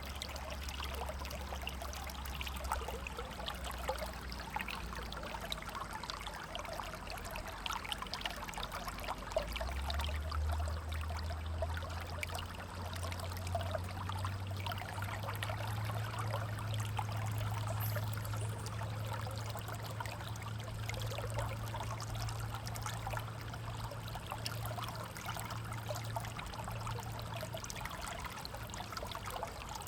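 River water flowing: a steady rush full of small splashes and trickles. A low steady rumble underneath steps up in pitch about ten seconds in.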